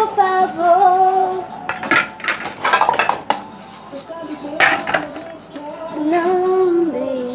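Plates and utensils clattering and clinking as dishes are washed by hand at a sink, with a run of clatters in the middle and another just before the five-second mark. Background music with a female singer plays underneath.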